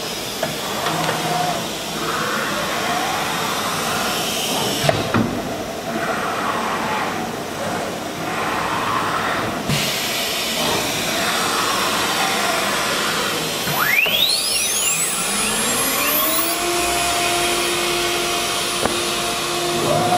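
CNC router machine running with a steady whirring noise. About 14 s in, a high whine sweeps quickly upward, then a lower tone rises and settles into a steady hum a couple of seconds later, as a motor spins up to speed.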